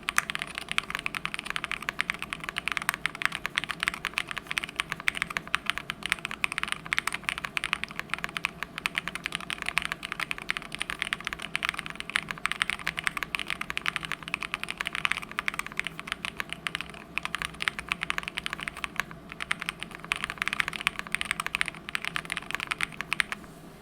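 Fast, steady typing on a Mode65 custom mechanical keyboard with moyu.studio Poseidon switches on an FR4 plate and DSS keycaps: a dense, continuous stream of keystroke clacks.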